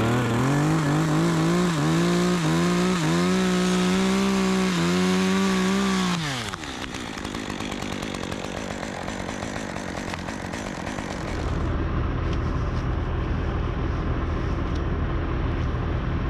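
Chainsaw running at full throttle through a cut for about six seconds, then let off so its revs fall away. From about eleven seconds in, a steady low engine rumble.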